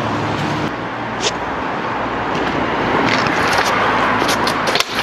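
Stunt scooter wheels rolling over paving, a steady rough noise with a few sharp clacks; the sound breaks off briefly near the end.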